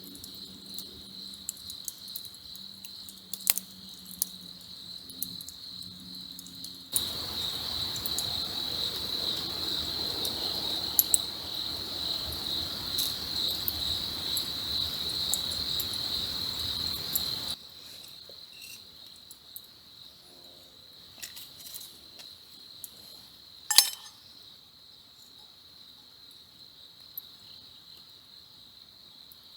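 Crickets trill steadily in a high, continuous chorus. For about ten seconds in the middle a hiss with a few crackles cuts in and stops abruptly. Near the end there is one sharp click.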